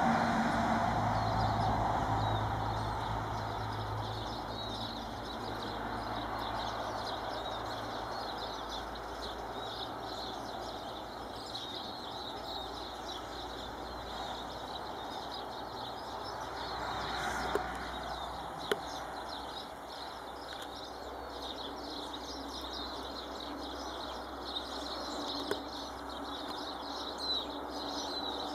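Birds chirping and twittering in many quick, high calls throughout, over a low steady rumble that is louder in the first few seconds. A few sharp clicks come near the middle and toward the end.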